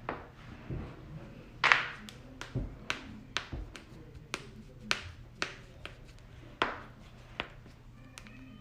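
Joints cracking: an irregular run of about a dozen sharp pops, the loudest one about two seconds in.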